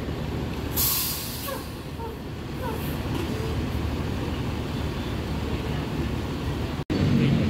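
Mercedes-Benz 1626 coach's diesel engine idling with a steady low rumble. A short burst of air hiss about a second in, typical of the bus's air-brake system venting. There is a brief break near the end, after which the rumble is louder.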